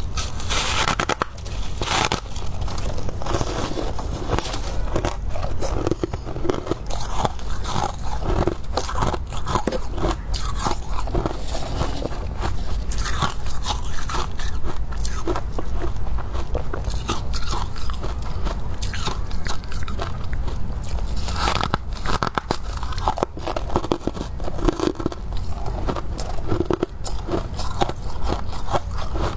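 Close-miked biting and chewing of crunchy, crispy freezer frost, with irregular crunches following one another throughout over a steady low hum.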